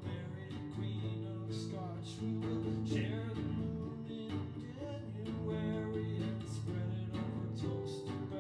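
Music led by plucked guitar.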